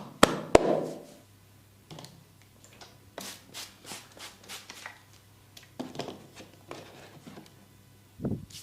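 Hand-massage sounds on bare skin: two loud, sharp cracks just after the start, then runs of lighter quick taps about three a second, and a low thump near the end.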